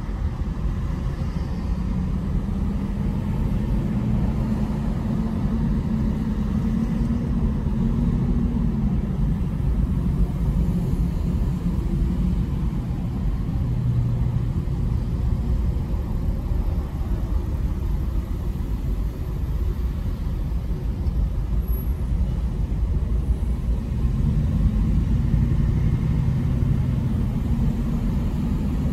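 Steady low road and engine rumble inside a car moving slowly in freeway traffic. A humming tone rises and falls twice, a few seconds in and again near the end, as the engine works harder.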